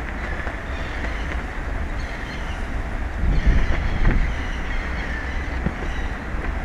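Wind buffeting the microphone: a steady low rumble with gusts that swell about three and a half seconds in.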